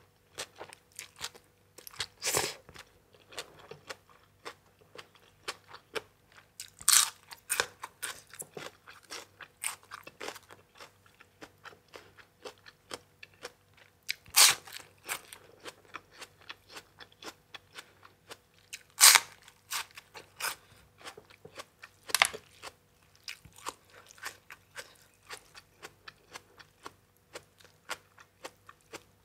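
Close-miked mouth sounds of someone eating: steady chewing with many small wet clicks, broken by about five louder, sharper crunches as crisp food is bitten.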